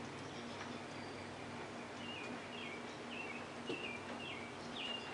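A small bird chirping: a string of short, high, falling chirps, mostly in the second half, over a faint steady hum.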